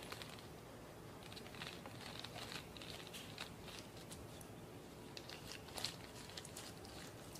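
Half a lemon squeezed by hand into a small ceramic bowl: faint, irregular crackling and ticking of the rind and dripping juice, with one sharper click about six seconds in.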